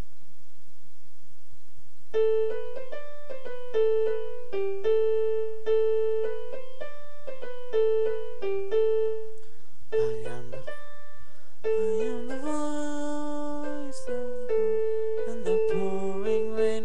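Electronic keyboard with a piano voice playing a slow melody a note at a time, starting about two seconds in and returning often to one repeated note. After a short break past the middle, a lower line of notes joins the melody.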